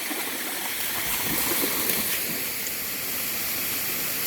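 Water of a waterfall and stream running at a swimming hole, a steady rushing hiss.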